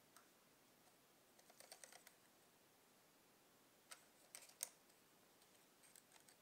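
Small metal clicks and ticks from the Minolta Hi-Matic 7s lens barrel as the front lens section is turned and unscrewed by hand. A cluster of light clicks comes about a second and a half in, another just after four seconds with one sharper click, then a few faint ticks near the end.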